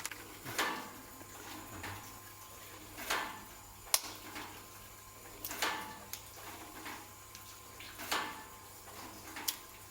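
Ginkgo nuts being sorted: a short sliding, rattling sweep that repeats evenly about every two and a half seconds, with a sharp click twice.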